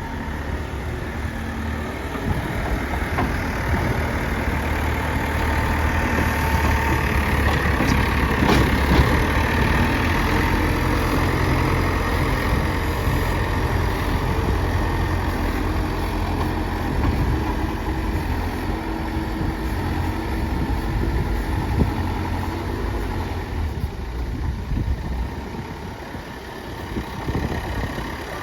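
Engine of a heavy earthmoving machine with a front bucket running steadily, pulling harder and louder through the middle, with a sharp knock about eight seconds in. It eases off near the end.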